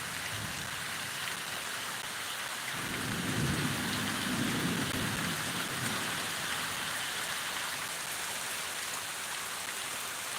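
Steady rain during a thunderstorm, with a low rumble of thunder rising about three seconds in and fading out over the next few seconds.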